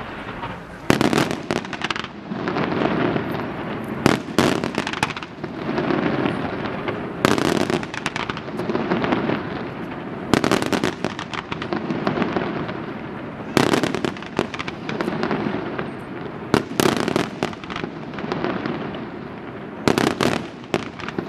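Aerial fireworks display: shells bursting in sharp bangs every one to three seconds, with continuous crackling between the bursts.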